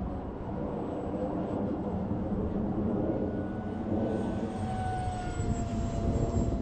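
The 50 mm electric ducted fan of a 3D-printed RC F-16 jet whines in flight over a steady low rushing noise. From about halfway through, its faint thin tone drifts slightly lower in pitch.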